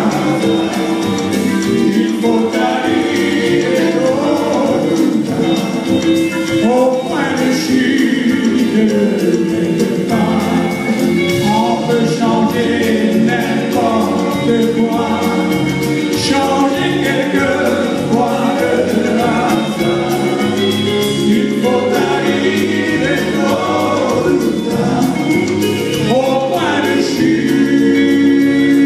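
A man singing into a microphone, backed by a live band with electric guitars, keyboard and drums.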